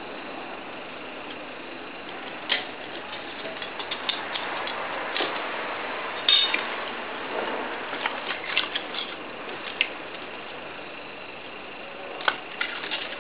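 Burning charcoal in a small charcoal-fired kiln crackling, with scattered sharp pops over a steady hiss.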